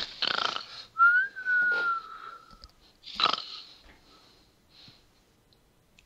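A man making a comic snoring sound with his voice: a rasping breath, then a thin whistle that rises slightly and slowly falls, then another rasping breath about three seconds in.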